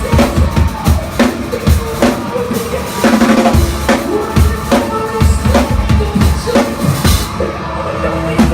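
Rock drum kit played live: kick drum, snare and rimshots hit in a quick, steady pattern, with pitched tom or bass notes underneath.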